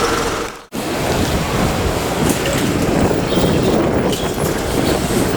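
Outdoor city ambience: a steady noisy rumble of wind buffeting the microphone, with traffic. It starts after a sudden drop-out less than a second in.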